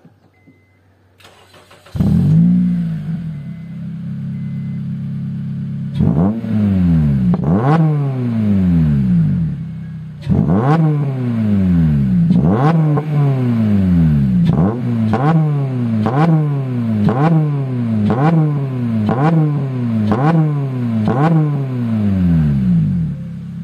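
Honda Civic Type R FN2's 2.0-litre four-cylinder i-VTEC engine, fitted with an Invidia exhaust that keeps the catalytic converter. It starts about two seconds in and settles to a steady idle. It is then blipped twice, then given about a dozen quick throttle blips at roughly one a second, each rev rising and falling back, and it returns to idle near the end. The exhaust is sooo loud.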